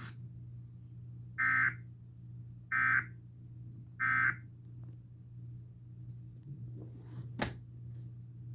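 Emergency Alert System end-of-message (EOM) data tones: three short, identical bursts of digital data screech, about a second and a quarter apart, marking the end of the alert. A steady low hum runs underneath, and a single click comes near the end.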